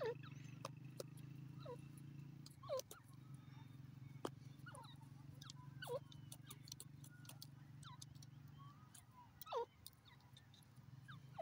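Grey francolin giving soft, short downward-sliding notes every second or so, with faint clicks between them.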